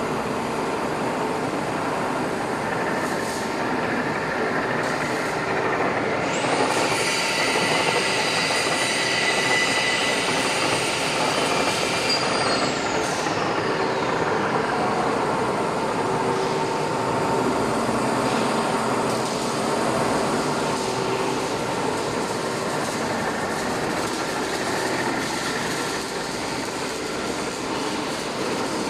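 Ryazan 1N65-5 heavy engine lathe running with a steady mechanical hum and drive whine. A high whine starts about six seconds in, holds, then glides down in pitch over about two seconds.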